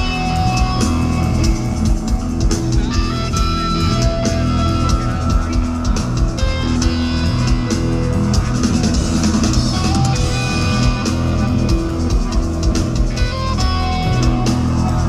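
Rock music with electric guitar, bass and a drum kit.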